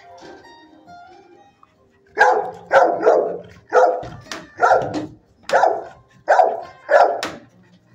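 A dog barking in a run of about eight loud, sharp barks, starting about two seconds in and repeating roughly every two-thirds of a second.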